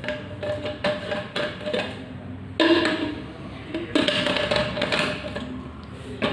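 Knocks and clatter of a portable bottle blender's plastic parts being handled and set down: about six separate hard knocks, some with a short ring.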